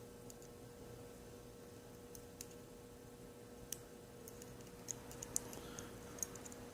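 Faint, scattered small metallic clicks as lock springs are worked out of a mortise lock cylinder's housing, about half a dozen ticks in the latter part, over a faint steady hum.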